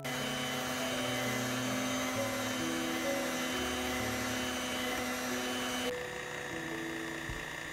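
Electric hand mixer running at high speed, its beaters whipping eggs and sugar to a foam in a glass bowl. About six seconds in it drops to a quieter low speed, the stage for knocking out large bubbles. Light background music plays under it.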